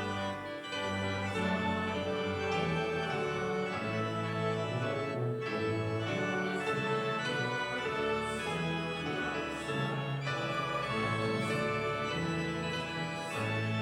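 Church organ playing a hymn, sustained full chords that change every second or so.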